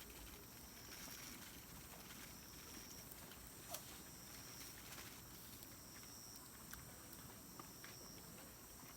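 Quiet outdoor ambience: a faint, high, steady trill comes and goes in stretches of about a second. A few faint clicks sound, one sharper about four seconds in.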